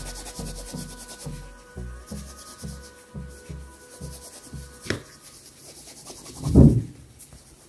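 Microfibre cloth rubbing back and forth over a small piece of amber in quick, even strokes, buffing off the polish to bring up the shine. A sharp click comes about five seconds in, and a louder dull thump of handling follows near the end.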